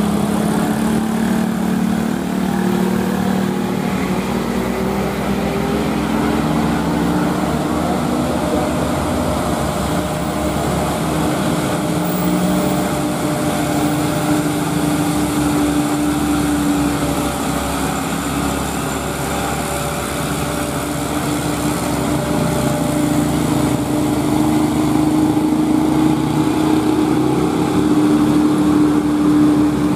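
Diesel engine of a loaded Mitsubishi Canter dump truck running under load on a climb, a steady drone whose pitch drifts slowly, growing louder in the last few seconds.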